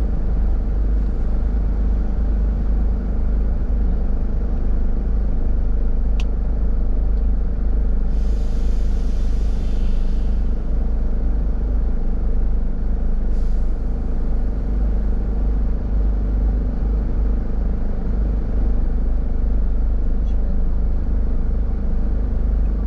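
A car being driven in city traffic, heard from inside the cabin: a steady low rumble of engine and road noise. A hiss lasting about two seconds comes a little over a third of the way in, with a shorter one a few seconds later.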